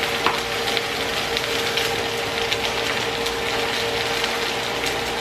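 Boneless, skinless chicken thighs sizzling and crackling as they brown in a hot pan, with a steady hum underneath.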